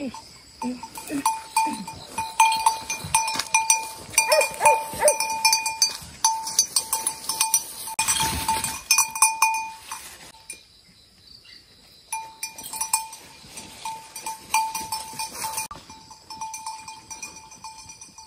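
A livestock bell clanking over and over at one pitch, irregularly, as the animal moves; a short burst of rustling noise comes just past the middle, then the bell stops for a couple of seconds before clanking again.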